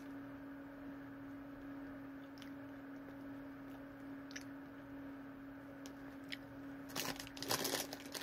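Crunchy pretzel snacks being chewed, with a few faint crunches over a steady low hum. About seven seconds in, the plastic snack bag crinkles loudly as a hand reaches into it.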